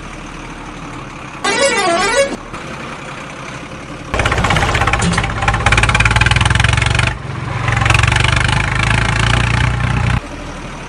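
Truck sound effects: a short wavering musical horn tune near the start, then a loud truck engine running for about six seconds, dipping briefly midway and cutting off about a second before the end, over a steady low engine hum.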